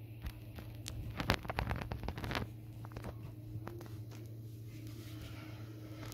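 Plastic squeeze-bottle nozzle scraping and clicking along a tile grout joint as grout is squeezed in. A cluster of short scrapes comes between about one and two and a half seconds in, then fainter, sparser ones, over a steady low hum.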